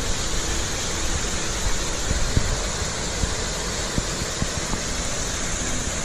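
Small waterfall's water rushing in a steady, even hiss.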